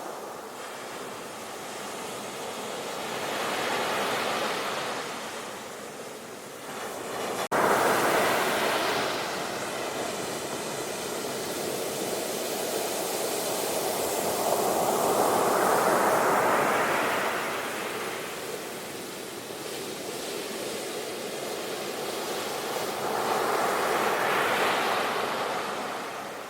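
Ocean surf: waves breaking and washing up in foam. It swells and fades in four surges, and the loudest starts abruptly about seven seconds in.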